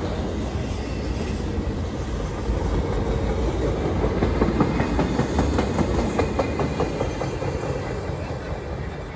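A CN intermodal freight train's empty well cars rolling past, wheels clicking over rail joints in a quick rhythm over a steady rumble. The clicking is loudest through the middle, then the sound fades as the cars move away.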